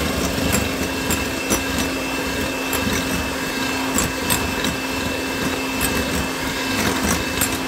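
Electric hand mixer running steadily, its beaters whipping eggs and sugar into a thick froth, with a constant motor whine and a few sharp clicks now and then.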